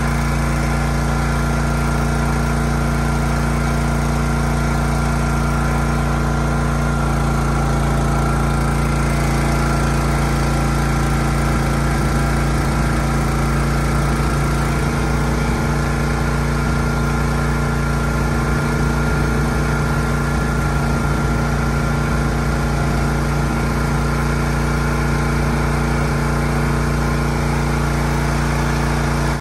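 Champion 37-ton log splitter's gasoline engine running steadily, its note shifting slightly about 7 and 15 seconds in as the hydraulic ram is worked.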